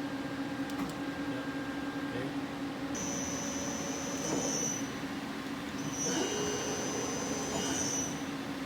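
1985 Mori Seiki SL-4T CNC lathe running a program and machining at about 700 RPM: a steady hum, with a high-pitched squeal that comes in twice, each time for about two seconds, from about three seconds in.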